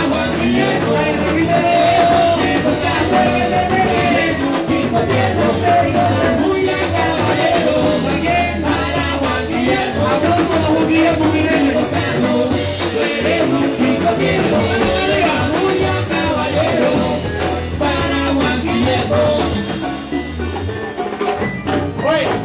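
Live cubaton band playing a dance groove on drum kit and other instruments, with singing over it.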